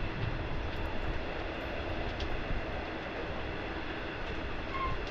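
Black Mesa & Lake Powell electric coal train rolling past: a steady rumble of wheels on rail, with a brief high squeak near the end.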